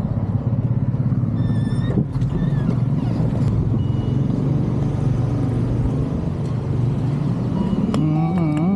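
Engine and road rumble inside the cab of a moving Toyota vehicle, steady throughout, with a brief high beep about one and a half seconds in. Near the end, a wavering pitched sound comes in.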